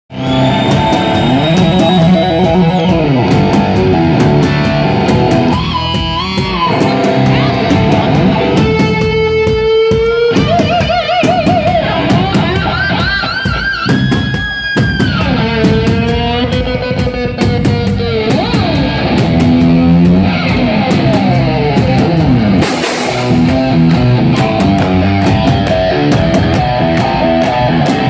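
Live heavy-metal band: a distorted electric guitar plays lead through Blackstar amps, holding long bent notes with wide vibrato and fast runs, over a drum kit.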